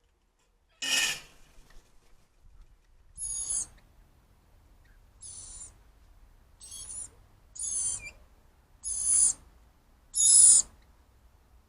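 Cockatoo screeching: seven harsh calls of about half a second each, spaced a second or two apart, the last ones loudest.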